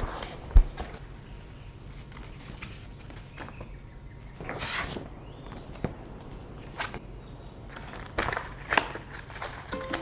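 Handling sounds on a desk as a keyboard kit and its packaging are moved about: a heavy thump about half a second in, a rustling swish midway, and a few sparse clicks and taps near the end.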